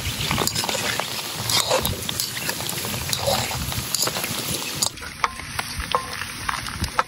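Kwek-kwek (batter-coated quail eggs) deep-frying in hot oil in a wok: a steady sizzle full of small crackles. After about five seconds it turns quieter, with sharper separate pops.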